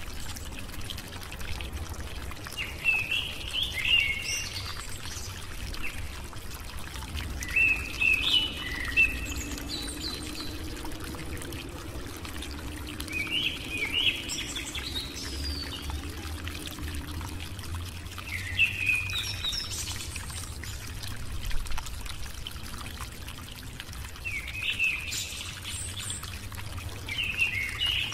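A bird chirping in short twittering phrases, one about every five seconds, over a steady hiss.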